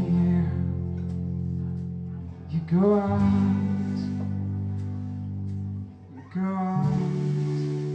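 Live acoustic band music: guitar chords under a voice singing long held notes. A new sung note slides in about two and a half seconds in and again near the seven-second mark.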